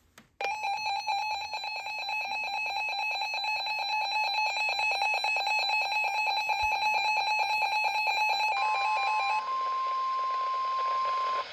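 Emergency alert signal tones: a rapidly pulsing electronic beep tone for about nine seconds, then a single steady tone, the NOAA Weather Radio warning alarm tone, for about three seconds before it cuts off abruptly.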